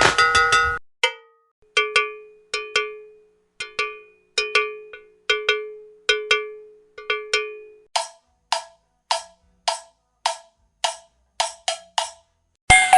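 Cowbell struck with a stick: a quick rolled rattle, then single strikes that each ring out, irregularly about two a second. From about eight seconds in the hits are higher-pitched and shorter, in a steady rhythm about two a second. A brief fast roll comes near the end.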